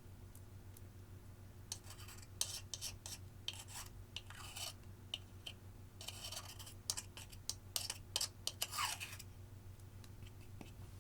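Makeup and clear slime being worked by hand: two spells of crackly, sticky clicking and scraping, with a quieter gap between them. A faint steady electrical hum lies underneath.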